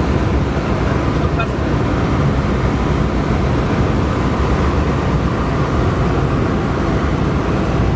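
Steady cabin noise of a Cessna 172 in flight: the piston engine and propeller droning evenly with airflow noise and no change in power.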